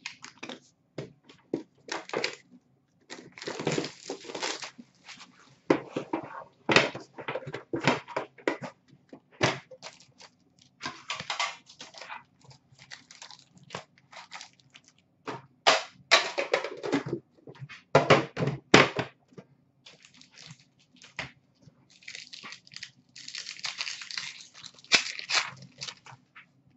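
Trading-card packs and a metal Upper Deck tin being handled: a string of sharp clicks and knocks, with several longer stretches of crinkling as foil pack wrappers are torn open and cards are shuffled.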